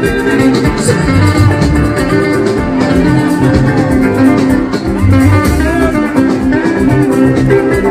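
Music with guitar and drums, playing loudly over a steady bass line.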